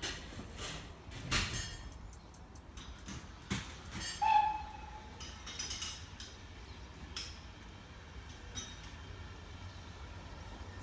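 Irregular metallic clanks and knocks from a train at a heritage railway over a low steady rumble, with one short tone about four seconds in.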